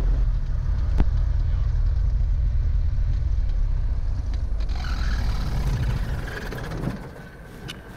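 The Beechcraft Bonanza's Continental IO-550-B flat-six engine idling with a low, steady rumble, heard from the cockpit, then shut down about six seconds in, the sound dying away as the propeller winds down to a stop. A single sharp click about a second in.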